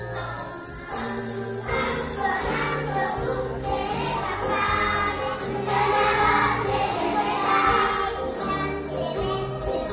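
Young children singing a Christmas song together over instrumental music, their voices coming in strongly about two seconds in.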